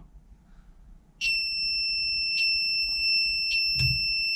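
Buzzer on a 12864 graphic LCD controller board sounding one continuous high-pitched beep, starting about a second in, with a faint tick about every 1.2 s. The display beeps because the printer board's firmware does not yet support it and needs upgrading.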